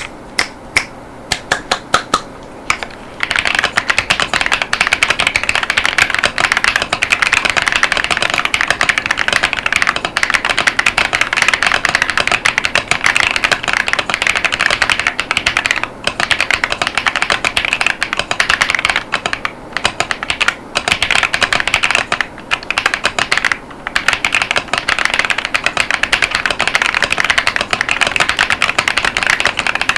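Mechanical keyboard with KiiBoom Taro Cream tactile switches (54 gf) and PBT Cherry-profile keycaps being typed on: a few single keystrokes at first, then fast continuous typing from about three seconds in, broken by a few short pauses.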